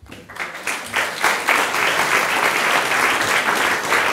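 Audience applauding, the clapping starting at once and building to full strength within about a second, then holding steady.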